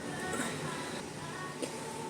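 Faint background music in a pause between loud burps, with a small tick about one and a half seconds in.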